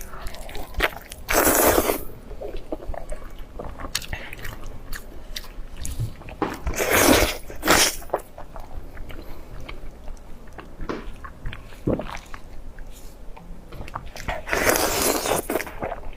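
Close-miked chewing and biting of pork: a steady run of small wet clicks, with three louder, longer bites about a second in, midway and near the end.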